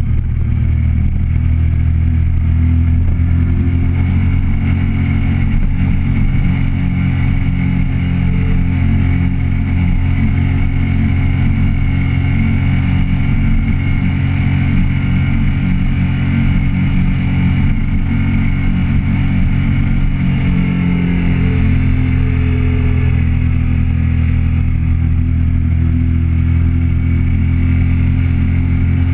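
Motorcycle engine running steadily under way at about 80 km/h, heard close from on the bike, its note holding mostly level with small shifts in pitch about two-thirds of the way through.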